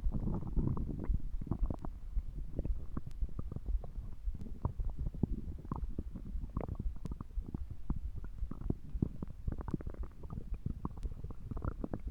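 Stomach gurgling and rumbling, with a dense run of short squelching pops and low gurgles throughout.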